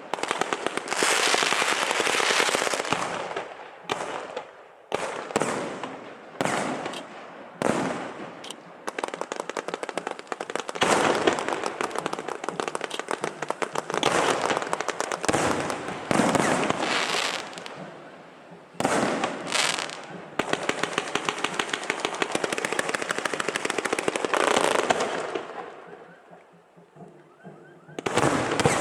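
Fireworks going off: repeated bangs and long runs of rapid crackling reports, thinning out and fading a few seconds before the end, then starting again.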